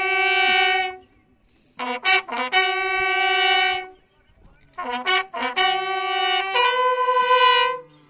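A bugle sounding a slow call in three phrases, each a few quick notes rising into a long held note, with about a second's pause between phrases. The last phrase steps up to a higher held note near the end.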